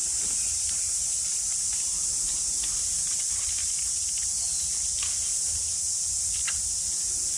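Steady high-pitched hiss of insects chirring, with a few faint clicks scattered through it.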